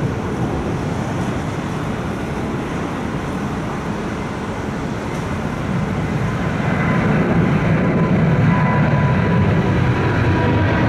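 Boeing 777 twin jet engines climbing out after takeoff: a steady broad roar that grows louder about six seconds in, as a high fan whine comes through.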